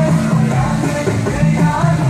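Music for the Dubai Fountain water show, a song with a repeating low bass pattern and a sliding melody on top.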